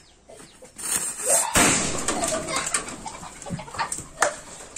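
Homemade match-head firecracker going off: its lit fuse fizzes with a rising hiss, then the charge bursts with a loud bang about a second and a half in, followed by a second or so of hissing and crackling as it burns out.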